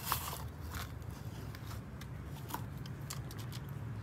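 A few light, scattered clicks and rustles of hands handling a cardboard box of baking soda and a scoop, the sharpest click at the very start, over a low steady background rumble.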